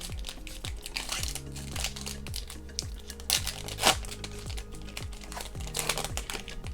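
Soft background music with a steady thumping beat, over crinkling and rustling from trading cards and their packaging being handled. The crinkling is loudest about three and a half seconds in.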